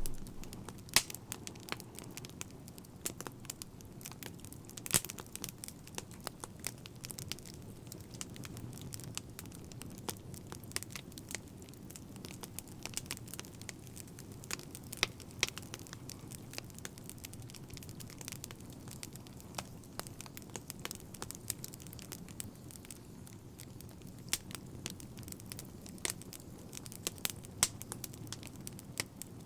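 Wood fire crackling: frequent sharp pops and snaps, irregularly spaced, over a soft steady hiss.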